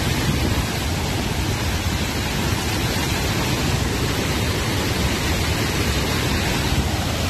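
Torrent of muddy floodwater rushing down a slope, a loud steady rush of water.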